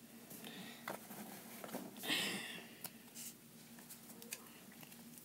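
Pokémon trading cards being handled and sorted by hand: soft rustling and sliding with a few light taps, and a brief louder rustle about two seconds in.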